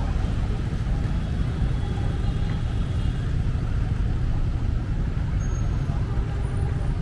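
Busy city street traffic: a steady rumble of cars and other vehicles passing.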